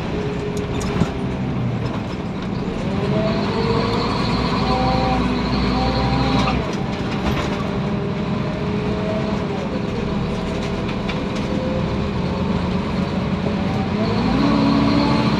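Scania OmniCity bus running under way, heard from inside the saloon: the ZF automatic gearbox whines over the engine noise. The whine glides up and down with road speed and steps at gear changes, one about six and a half seconds in and another climb near the end.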